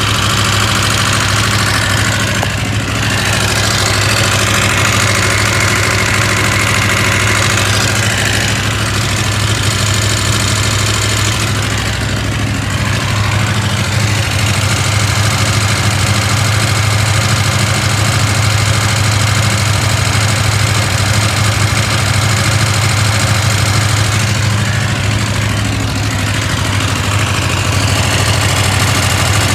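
KTM 890 Adventure R's parallel-twin engine idling steadily with a rattle from the engine, which the owner is unsure is normal.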